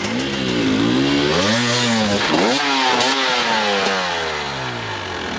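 Enduro dirt bike engine revving, its pitch rising and falling several times as the throttle is worked, then sinking away over the last couple of seconds.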